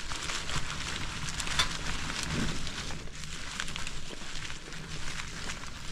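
Bicycle tyres rolling over a farm dirt trail, a steady crackle of many small clicks over a low rumble.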